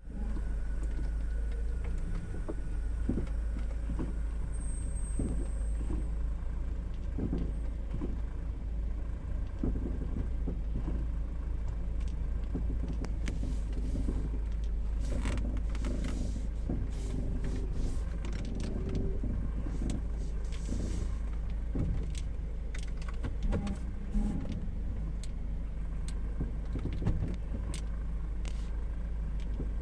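Car with a steady low rumble and repeated short knocks and creaks, which the owner presents as abnormal noises from the brakes and steering.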